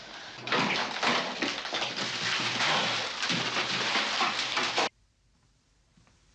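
Packets, boxes and groceries being flung off pantry shelves: a loud, dense rattling clatter of packaging and spilling contents. It cuts off abruptly about five seconds in, leaving faint room tone.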